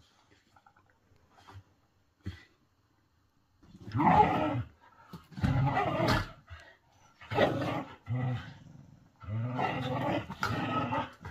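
Whippets growling in rough play while they wrestle, quiet at first, then about five loud growling bursts starting about three and a half seconds in. This is play-growling that sounds like a real fight.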